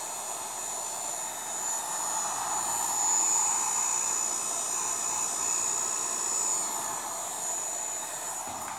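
Electric heat gun blowing hot air, a steady rushing blow with a high whine from its fan, switched off right at the end. It is shrinking heat-shrink tubing over a drone's receiver antenna.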